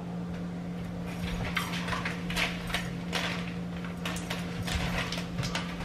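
Scattered short clicks and crinkles from things being handled, several a second at irregular spacing, over a steady low hum.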